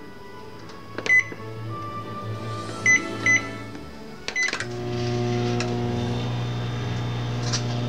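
Microwave oven touch keypad beeping as buttons are pressed: several short, high beeps over the first few seconds. Start is pressed, and about four and a half seconds in the microwave starts running with a steady low hum.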